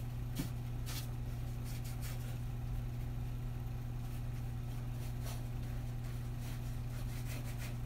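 Steady low hum, with a few faint brushing sounds of a paintbrush working paint onto the edge of a stretched canvas.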